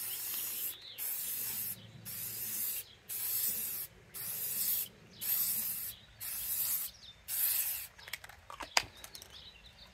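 Aerosol spray-paint can spraying paint onto a steel wheel in about eight short hissing bursts, roughly one a second with brief pauses between. A few clicks and knocks follow near the end.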